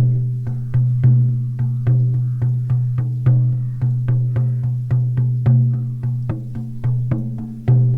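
14-inch deerskin shamanic frame drum on a beechwood frame, struck with a soft beater in a steady beat of about four strokes a second, with a louder stroke roughly once a second. A deep low tone rings on between the strokes.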